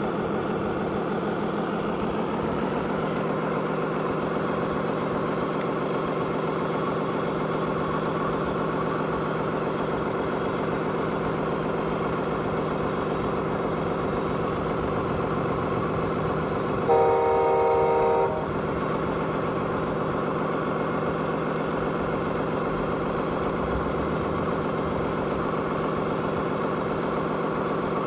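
Radio-controlled Scania R620 truck's sound module playing a steady diesel engine running sound as the model drives. About 17 seconds in, a horn sounds for about a second and a half.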